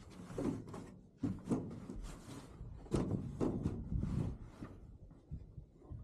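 Irregular knocks, clunks and rustling, like things being handled and set down, loudest about halfway through.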